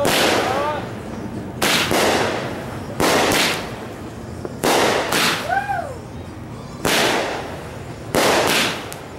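A consumer firework cake firing a volley of aerial shots, about six in all, one every second and a half or so. Each is a sharp bang followed by a brief hissing crackle as the stars burst.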